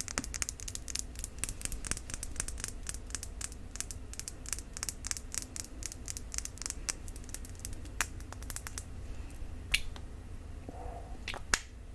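Quick, crisp tapping on a cube-shaped glass cologne bottle, several taps a second, for about nine seconds, then a few scattered taps near the end.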